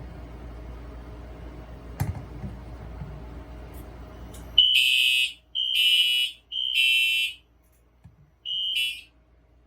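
Fire alarm horn sounding in the temporal-three pattern: three loud high-pitched blasts close together, a pause, then a shorter fourth blast that cuts off. One faint click about two seconds in, before the horn starts.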